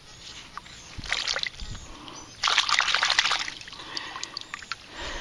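Water sloshing and trickling as a freshly dug metal relic is rinsed off by hand, with a short splash about a second in and a longer, louder one a little before the middle.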